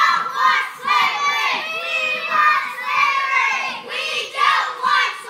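A group of children shouting together in short repeated bursts as they haul on a rope.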